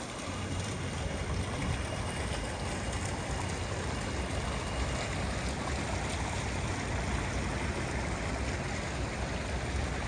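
Small bubbling fountain jets splashing steadily into a stone-edged pool, over a steady low rumble.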